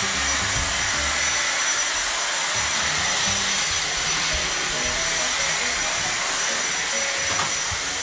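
Dyson V6 Fluffy+ cordless stick vacuum running steadily: a rushing hiss of air with a thin, high-pitched motor whine held at one pitch.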